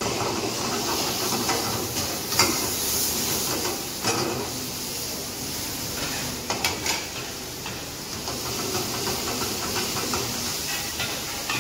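Food sizzling steadily in a pan of hot oil on a gas burner, with a metal ladle now and then scraping and knocking against the pan.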